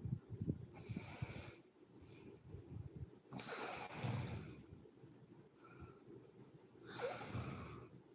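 A woman snoring in her sleep: a low fluttering snore at the start, then three heavy, noisy breaths a few seconds apart, two of them with a snoring rumble underneath.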